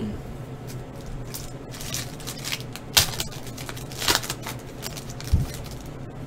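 Foil trading-card pack wrapper crinkling and tearing as it is ripped open by hand, with sharp crackles about three and four seconds in and a low thump near the end.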